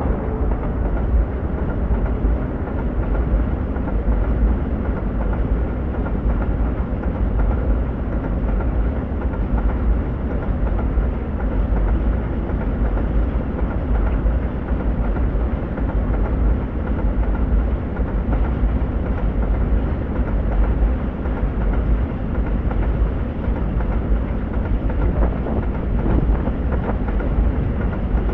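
Freight train of tank wagons rolling past at speed: a steady, loud rumble of steel wheels on the rails.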